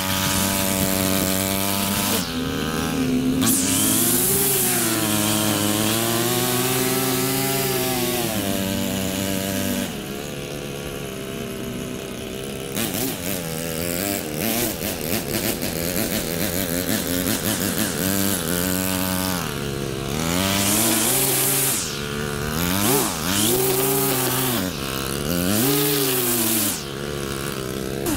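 String trimmer running and cutting grass, its pitch swinging up and down again and again as the line bites and frees. About ten seconds in it goes quieter for a few seconds with a rapid ticking, then the pitch swings return.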